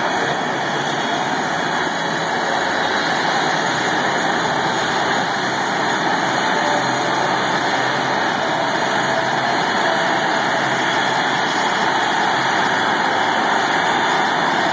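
Engines of Blue Angels F/A-18 Hornet jets running as the jets taxi out: a steady jet noise that slowly grows louder.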